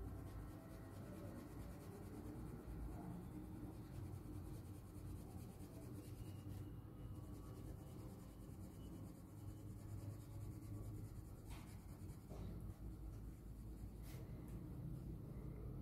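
Colored pencil shading on card with a blunt, slanted lead: faint, steady scratching of the strokes, with a few light ticks in the last few seconds.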